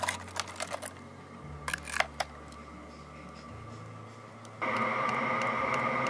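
A run of sharp clicks and taps as a plastic seedling tray is handled. Then, a little past halfway, a Chinese diesel heater starts running steadily, its blower giving a steady whine with faint regular ticks. The heater is working again after being broken.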